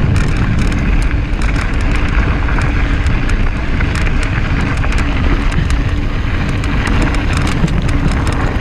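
Mountain bike rattling over a rocky trail at speed, with wind rushing over the microphone and many small clicks and clatters from the tyres and bike.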